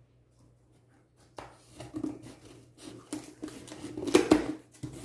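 Scattered knocks, rustles and scrapes of a cardboard shipping box being handled and opened, after about a second and a half of near silence; the loudest knocks come about four seconds in.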